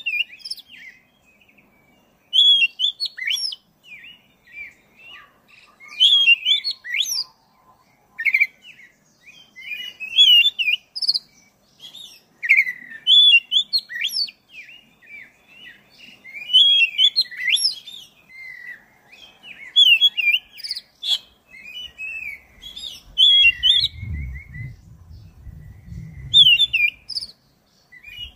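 Oriental magpie-robin (black-breasted kacer) singing a long, continuous run of varied whistled and warbled phrases, a new phrase every second or two. A brief low rumble sounds about three-quarters of the way through.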